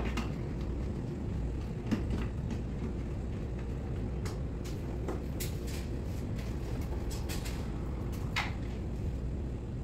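Steady low rumble with a few light clicks and taps scattered through it, about four in all, as small parts and wiring are handled at the connection compartment of a wall-mounted solar inverter.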